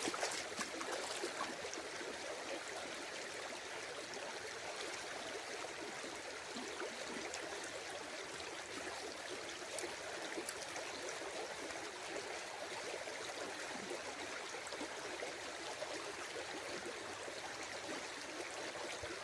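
Stream water rushing steadily, with a few light clicks near the start.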